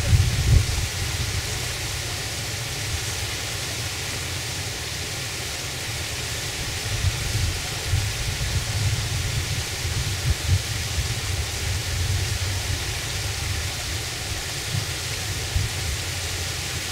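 Wind buffeting the microphone outdoors: a steady hiss with low rumbling gusts that rise and fall, strongest in the middle.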